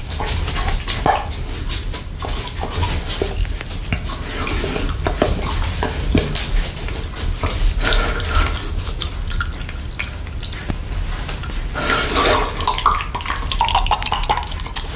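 Close-miked wet mouth sounds: licking and slurping chocolate and whipped cream from a cup, with irregular smacks and clicks.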